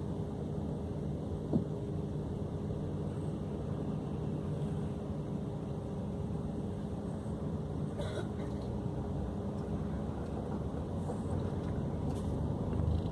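Scania K400 coach's rear-mounted diesel engine running steadily with an even hum, and a single sharp click about one and a half seconds in.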